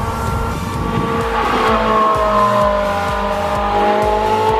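A car running on a race track, its engine note slowly rising and falling, over background music with a steady beat.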